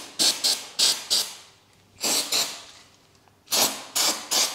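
Aerosol can of parts cleaner spraying in short hissing bursts, about nine in three quick groups, onto a cloth and the metal surface to degrease it.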